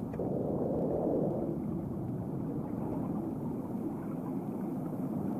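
Steady low rumbling noise with no clear pitch, swelling briefly in the first second and a half, like muffled underwater ambience.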